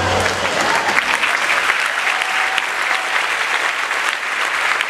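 Audience applauding steadily, a dense, continuous clapping.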